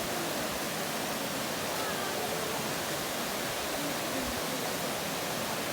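Steady rushing of a mountain river's water.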